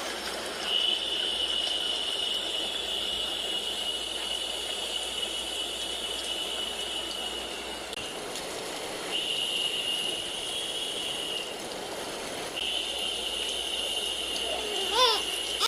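White noise played for a baby: a steady hiss with a thin high whine running through it, which drops out briefly twice. The infant babbles near the end.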